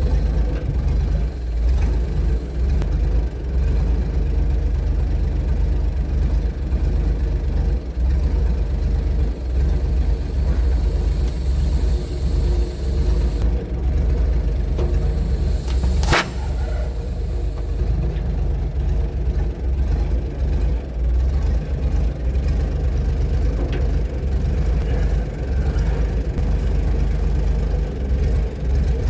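Tractor engine idling steadily, with a single sharp crack about halfway through.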